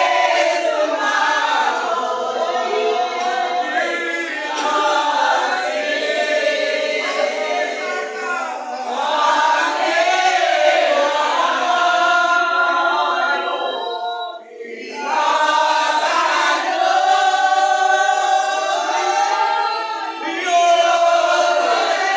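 Church congregation singing together, many voices at once, with a brief drop about two-thirds of the way through.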